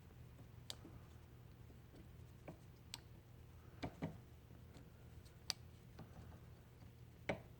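Scattered light clicks and taps of small metal starter parts being handled as the brushes are pushed back and the brush assembly is worked over the starter's armature, about half a dozen at uneven intervals, over a faint steady low hum.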